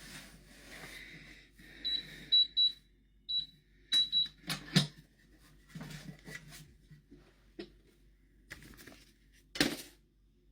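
Keypad of an electronic safe beeping as a code is keyed in: about six short high beeps, followed by clicks and clunks of the lock and door.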